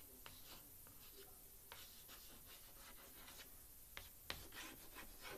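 Faint handwriting: short, scratchy strokes of something writing over a surface, with two sharp clicks about four seconds in.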